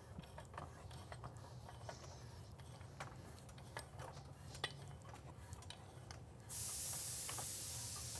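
Faint, scattered light clicks of a pipe wrench gripping and turning a threaded elbow tight on a pipe held in a tripod chain vise. About six and a half seconds in, a steady hiss comes in and runs on.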